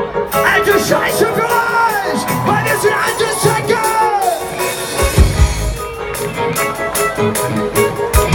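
Live band music: a gliding melody line over sustained chords, then heavy drum and bass hits come in about five seconds in as the band starts a rock song.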